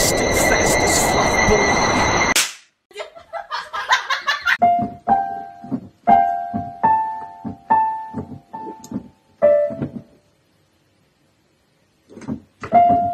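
A loud hissing noise with steady high whistling tones cuts off suddenly about two seconds in. Then a cat paws at keyboard keys, striking single notes and small clusters at an irregular pace, about a dozen in all, with a pause of about two seconds near the end.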